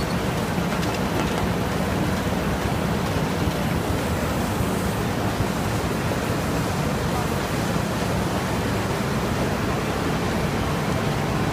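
Fully automatic flute laminator running: a steady, even mechanical rush with a low hum, sheets feeding continuously through its rollers.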